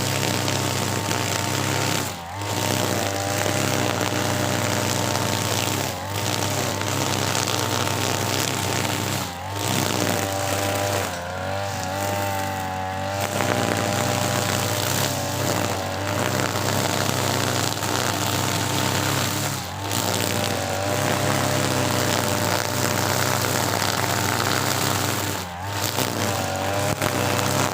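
TB43 two-stroke brush cutter with a nylon trimmer head running at full throttle through thick grass. The engine note dips briefly several times and wavers for a couple of seconds midway as the head loads up and the throttle eases.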